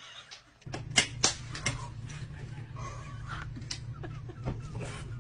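A plastic spatula clicking and scraping against a plate as egg is stirred, with several sharp taps, over a steady low hum.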